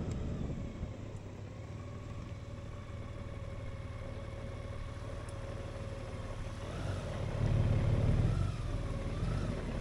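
Honda Gold Wing's flat-six engine running at low speed as the motorcycle creeps along, a low rumble under a steady high whine. About seven seconds in the engine note swells and wavers briefly as the bike pulls forward.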